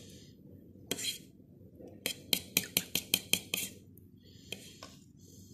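Metal spoon stirring a thin custard mix of egg yolks and milk in a bowl, clinking against the bowl in a quick run of about a dozen taps. There is a single tap before the run and two more after it.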